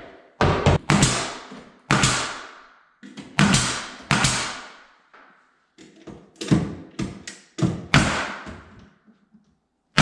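A series of sharp knocks and thumps at an irregular pace, each one ringing out and dying away over about a second, with a gap in the middle and a few quick strikes near the end.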